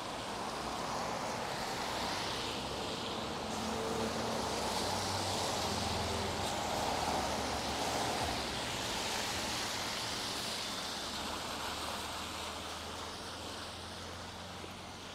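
Rain on a street, with a car driving past on the wet road: its tyre hiss and low engine hum swell to a peak about halfway through and then fade.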